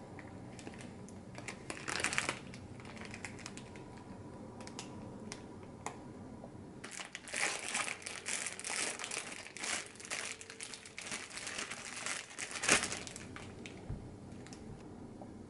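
Thin plastic bread bag crinkling as it is handled and opened: a few short crinkles about two seconds in, then a long busy run of crinkling in the middle, with the loudest crinkle late on.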